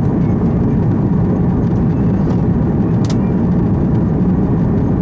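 Steady, loud engine and airflow noise heard inside the cabin of an Airbus A330-300 with Rolls-Royce Trent 700 engines, during the takeoff climb-out. The rumble is deep and even throughout.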